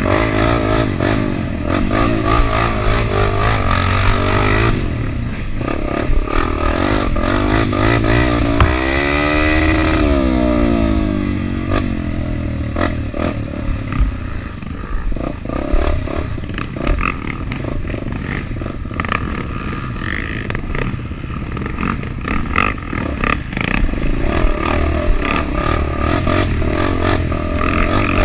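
Dirt-bike engine being ridden on a trail, revving up and down as the throttle opens and closes, with a marked rise and fall in pitch about nine seconds in. Clattering and knocking from the bike over rough ground.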